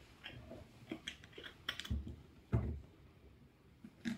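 Plastic screw cap being put on and turned onto a water-filled plastic bottle: a scatter of faint clicks and taps, with two soft thumps about two and two and a half seconds in.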